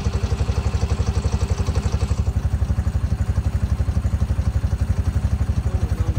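An engine idling steadily, with a low, even, rapid pulse.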